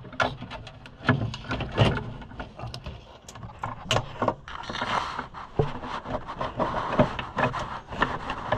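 A throttle cable being fed through the White 700 tractor: scraping and rubbing with many sharp clicks and light knocks as it is pushed along.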